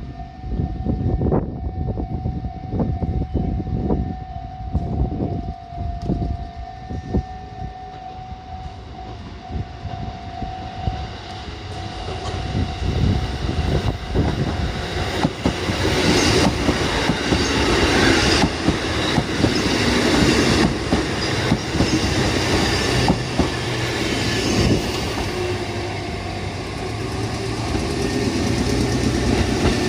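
Kotoden electric train running by, its wheels clacking over the rail joints, with a steady tone over the first third; the train noise grows louder and fuller from about halfway through.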